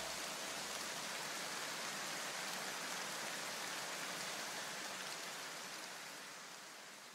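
An even, rain-like hiss of noise left as the electronic background music ends, holding steady and then fading out over the last couple of seconds.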